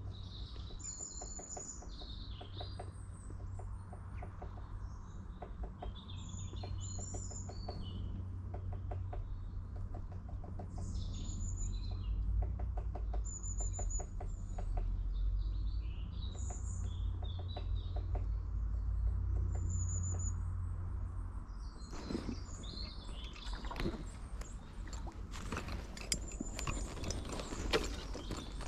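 Small birds chirping and singing in repeated short high phrases over a steady low rumble. Over the last several seconds the birdsong gives way to a run of sharp clicks and knocks.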